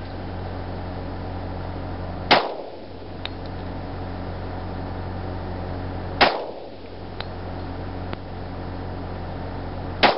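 Glock 20 SF pistol firing 10mm Auto rounds: three single shots about four seconds apart, each followed by a brief ring-out, with a few faint small clicks between shots.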